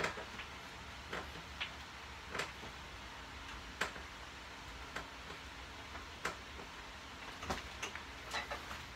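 Faint short clicks and taps at uneven intervals, roughly one a second, from a power tower knee-raise station being worked through a set of hanging leg raises.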